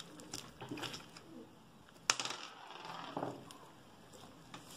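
Large mass of stiff, mixed old slime being squeezed and kneaded by hand: soft squishing with small clicking pops, and one sharper pop about two seconds in.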